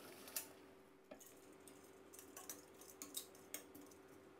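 Near silence broken by a few faint clicks and taps of a wire mesh strainer against stainless steel as blanched okra is scooped out of the cooking water into a bowl of cold water; the sharpest click comes about a third of a second in. A faint steady hum lies underneath.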